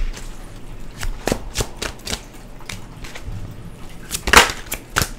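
Tarot cards being shuffled and handled by hand: a run of irregular light clicks and taps, with a longer, louder swish about four seconds in.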